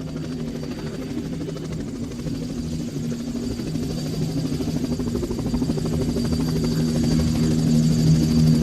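A steady engine drone with a low hum, growing steadily louder.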